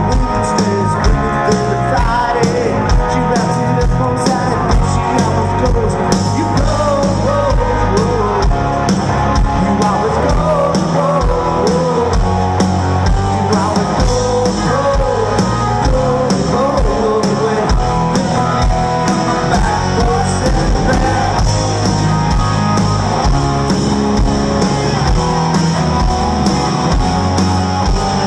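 Live rock band playing: electric guitar, bass guitar and drum kit, with a male lead singer singing over them.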